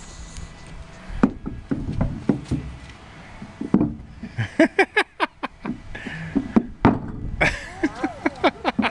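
Wooden knocks and thumps from a mahogany speedboat-style baby cradle as a toddler climbs and rocks in it. In the second half they come as a quick run of taps mixed with short squeaky sounds.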